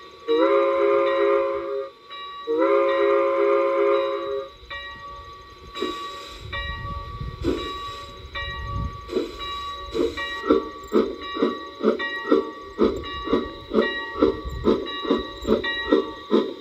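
A sound-equipped G scale Bachmann steam locomotive blows two long blasts on its chime whistle. Then come a hiss of steam and a low rumble, and from about ten seconds in the chuff of the exhaust beats about twice a second as it pulls away.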